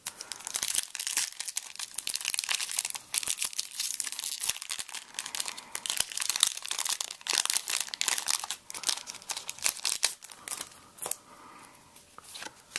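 Foil booster pack wrapper crinkling and tearing as it is opened by hand, a dense run of crackles that dies down near the end.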